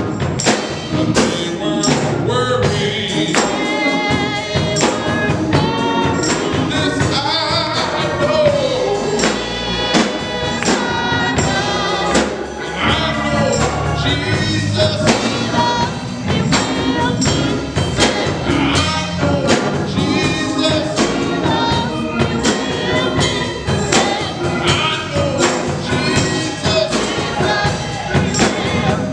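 Gospel music: singing over a steady percussion beat of about two strikes a second.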